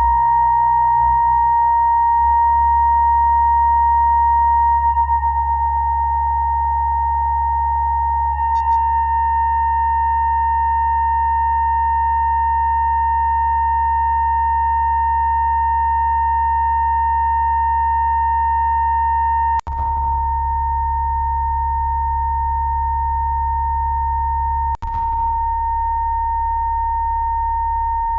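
Electronic drone: a steady sine tone near 1 kHz with fainter overtones above it and a low hum underneath. It is broken twice by a sharp click and a brief dropout, about 20 and 25 seconds in.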